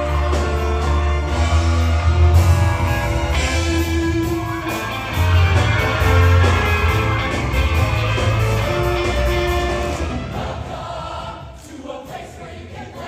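A show choir singing with a loud instrumental accompaniment and a heavy bass line. About ten seconds in, the music drops away and gets quieter.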